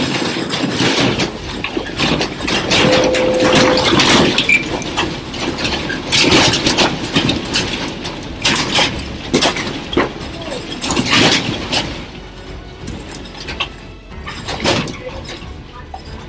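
A classroom rattling and clattering in an earthquake: dense, irregular knocking and banging. It eases off in the last few seconds, with one more loud burst near the end.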